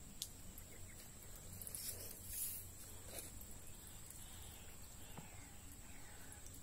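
Quiet swamp ambience: a faint steady high-pitched drone, a brief rustle about two seconds in, and faint falling bird calls in the second half.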